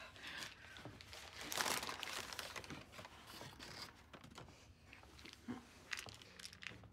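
Paper crinkling and hands fumbling with a plastic prescription pill bottle: faint rustles and small clicks, with a louder rustle about a second and a half in.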